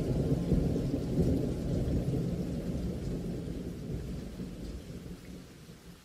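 Rain falling under a low rumble of thunder, fading out over the last couple of seconds.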